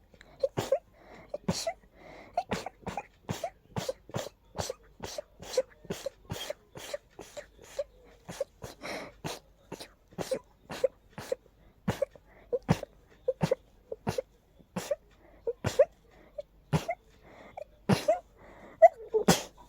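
A person in an allergy sneezing fit: short, sharp sneezes one after another, a little more than two a second, without a break.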